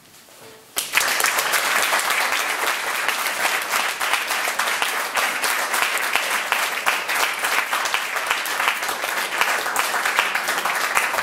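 Audience applauding, breaking out suddenly about a second in as the violin's last note dies away, then continuing steadily.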